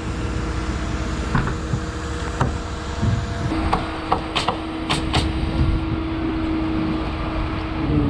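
Crane truck's engine running steadily as the concrete top section of a two-piece septic tank is lowered into place. A steady tone comes in about halfway, and there are a few sharp clanks in the middle.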